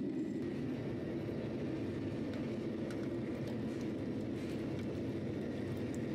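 A red-hot axe head quenched in a pot of oil for hardening: the burning oil gives a steady low rumble of flame with a few small scattered crackles.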